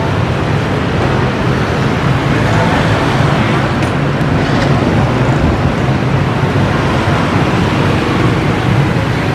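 Steady, loud traffic noise from a busy street.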